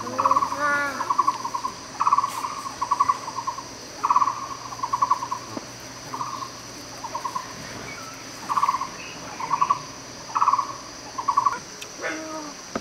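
Dachshund barking in short, quick bursts, two or three barks at a time, recurring every second or two. Insects buzz steadily in the background.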